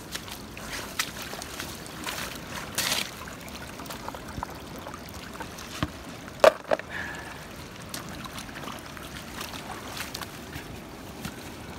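Shallow stream running over gravel, with scattered clicks and knocks of stones and gear being handled. The loudest is a single sharp knock a little past halfway.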